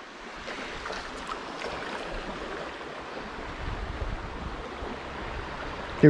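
Shallow creek water running over rocks, a steady rush, with a low rumble swelling for about a second around the middle.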